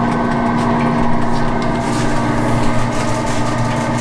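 Steady mechanical hum and drone from the candy-kitchen equipment, with a faint crackle of molasses candy syrup boiling in a copper kettle.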